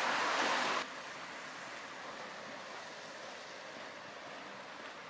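A van passing close on the street, its tyre and engine noise cut off abruptly just under a second in, followed by steady street noise.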